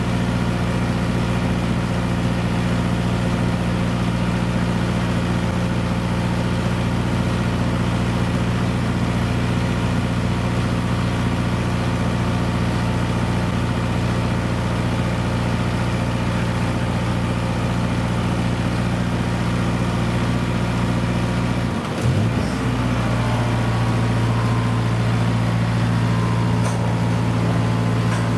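Diesel semi tractor's engine running steadily while parked with its container side-lifter. About 22 seconds in, the engine note dips briefly and then comes back.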